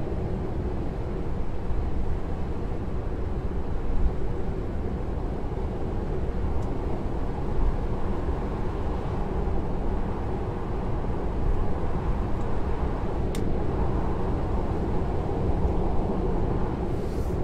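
Steady road and wind noise inside a Tesla Model 3's cabin at motorway speed, about 120–130 km/h, with no engine note. It is an even, low rumble that keeps on without change.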